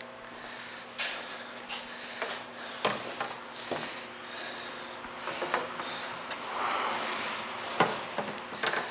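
Scattered clicks and knocks of mower-bagger parts being handled and fitted together by hand, with a short rubbing scrape about two-thirds of the way through.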